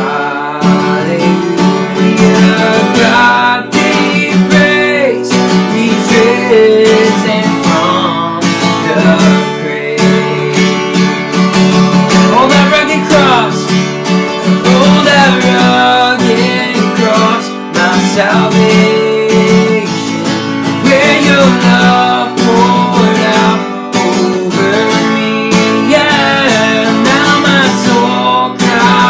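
Worship music: strummed acoustic guitar with a band, and a voice singing a slow melody over it.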